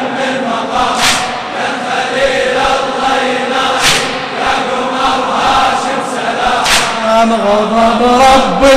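A crowd of mourners chanting a latmiyya refrain in unison. A sharp collective slap lands about every three seconds, three times, the beat of latm chest-beating.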